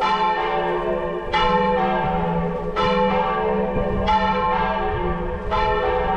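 Church bell tolling, struck five times at an even pace of about one stroke every second and a half, each stroke ringing on into the next.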